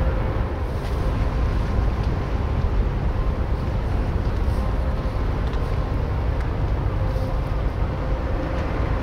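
Ferry Etretat's engines running steadily: a continuous low rumble with a faint steady hum above it.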